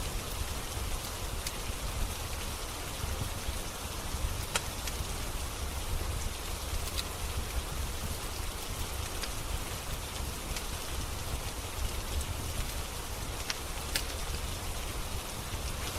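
Steady rain falling, with a few sharp pops and crackles from a wood fire in a fireplace scattered through it.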